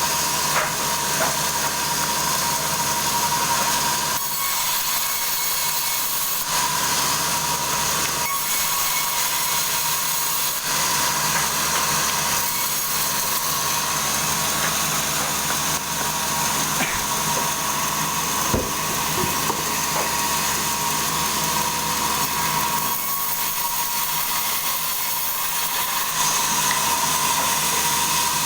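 Sawmill saw running steadily through a log: an even, hissing cutting noise with a steady tone and a low hum underneath.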